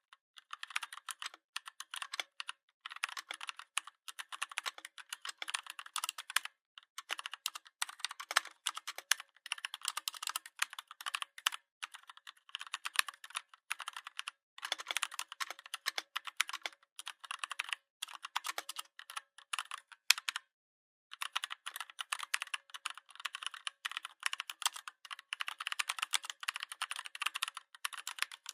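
Fast typing on a Redragon 61-key mechanical keyboard: a dense clatter of key clicks with short breaks, and one longer pause about twenty seconds in.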